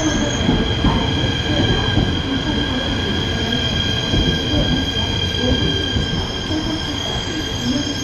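ITX-Maum electric multiple unit, two sets coupled, rolling slowly into the station as it brakes to a stop. Its wheels rumble under a steady high-pitched brake squeal.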